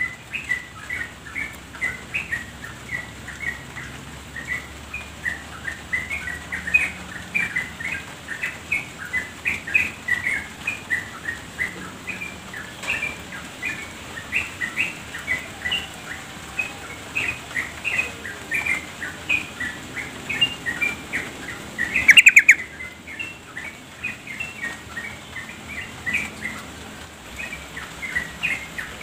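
Yellow-vented bulbul (trucuk) calling without a break in quick, short chirping notes, the female's call used to coax males into singing. About three quarters of the way through comes a sudden, much louder burst.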